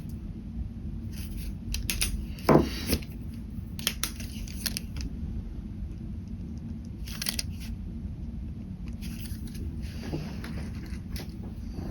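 Ballpoint pen scratching on paper in short, irregular strokes over a steady low hum. About two and a half seconds in comes a brief, louder sound that falls in pitch.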